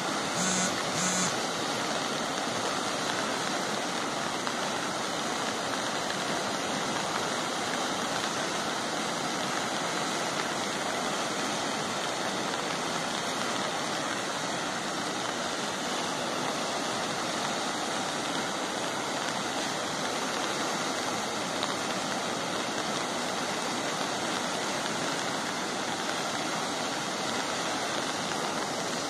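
Rain-swollen stream rushing steadily, with two short beeps about a second in.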